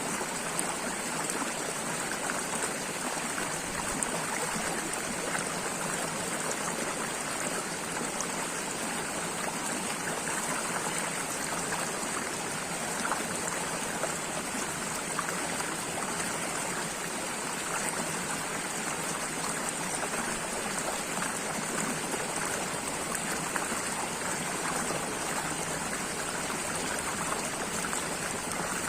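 Running water flowing steadily, like a stream, as an even, unbroken rush with faint small splashes scattered through it.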